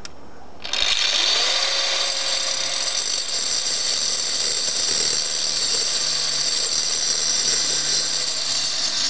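Angle grinder starting up about a second in, its pitch rising as it spins up, then running steadily as it cuts into a concrete block. The blade is one the user judges dull ("that blade is crap").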